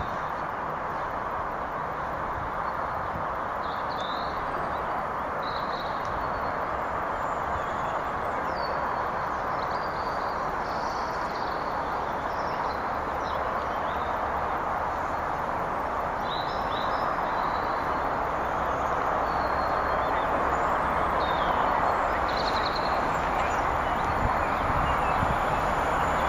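Steady rushing noise of LNER A1 steam locomotive 60163 Tornado approaching at speed with an express, growing slowly louder, with a low rumble coming in near the end. Birds chirp over it.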